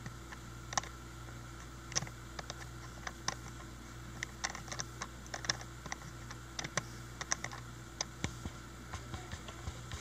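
Small, irregular clicks of a Delsey TSA suitcase lock's combination wheels being nudged round with a thin pick, one step at a time, to line up the notches on the wheels.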